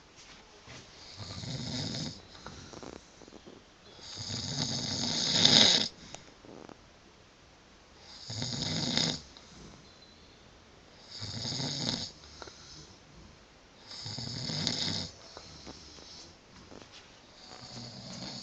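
A man snoring in a steady rhythm: six snores, each about a second long and about three seconds apart, a low rasp with a hiss on top. The second snore, about five seconds in, swells and is the loudest.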